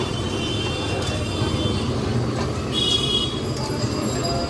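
Busy street ambience: a steady rumble of traffic and background chatter, with a brief high squeal about three seconds in.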